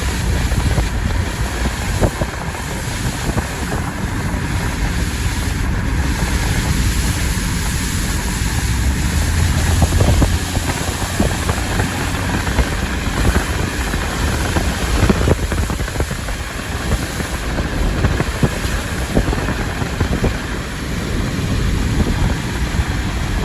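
Steady low rumble of wind noise, with occasional short knocks.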